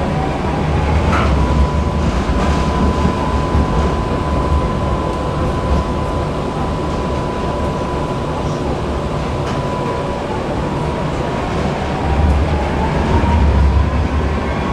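Tram running on its rails, heard from on board: a heavy low rumble with a steady high whine. From about twelve seconds in, whines rise in pitch and the rumble swells as the tram picks up speed.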